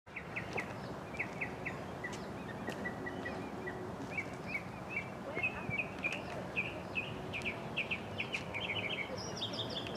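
Small birds chirping in quick repeated calls, getting busier about halfway through, with a higher-pitched series joining near the end, over a steady background of outdoor noise.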